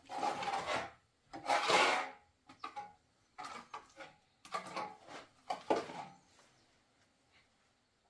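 A metal trowel scraping wet plaster across a rough wall, in about six rasping strokes roughly a second apart, then trailing off near the end.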